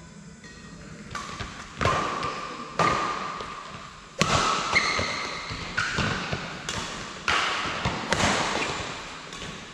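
Badminton rally: rackets strike the shuttlecock about once a second, nine or ten sharp hits in all, each ringing on in a large echoing sports hall. A couple of short shoe squeaks on the court come midway through.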